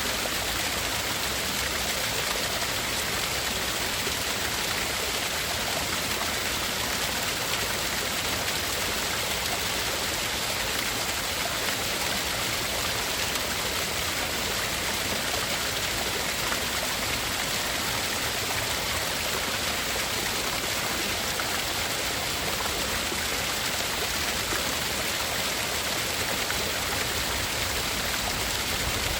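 Steady, unvarying water-like rushing hiss of tinnitus-masking sleep noise, even in level with nothing standing out.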